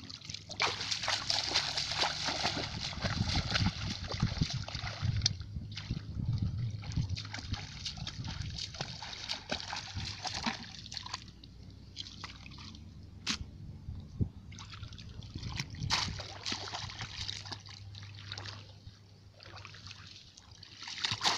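Irregular splashing and sloshing of shallow muddy water as a person wades through it and works a bamboo fish trap in the water.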